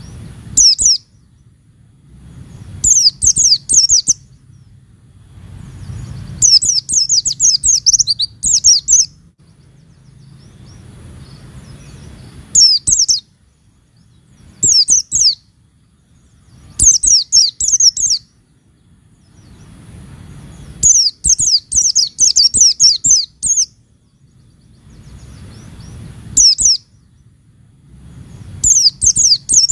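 Pleci (white-eye, Zosterops) singing in bursts of rapid, high-pitched chirps, each a second or two long and repeated every few seconds. A faint low hum fills the gaps between bursts.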